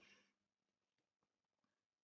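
Near silence: no audible sound.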